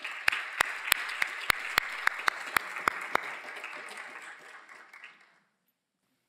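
Audience applauding, fading out about five seconds in. One person's louder, sharper claps stand out at about three a second for the first three seconds.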